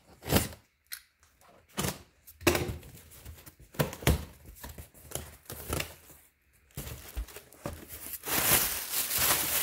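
Packing tape being peeled and torn off a cardboard box in several short rips, then the box flaps pulled open with a longer, louder rustle of cardboard and plastic air-pillow packing near the end.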